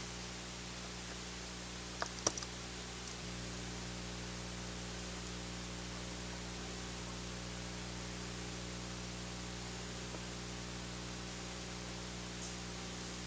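Steady hiss and low electrical hum, with a short cluster of sharp clicks about two seconds in and a faint click near the end: a screwdriver working tight laptop hinge screws.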